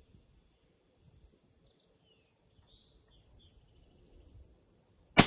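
A few faint bird chirps over a steady high hiss, then near the end a single loud 224 Valkyrie rifle shot, its report trailing off in an echo.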